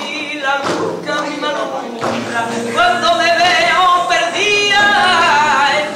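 Flamenco-style singing in long, wavering held notes, over a Spanish guitar, with a group clapping along in rhythm (palmas).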